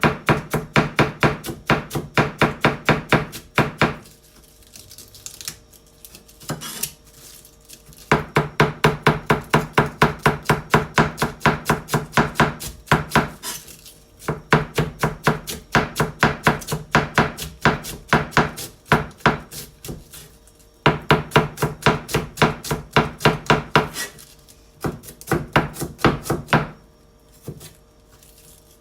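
Kitchen knife finely shredding cabbage on a cutting board: fast runs of crisp chopping strokes, about five a second, broken by several short pauses.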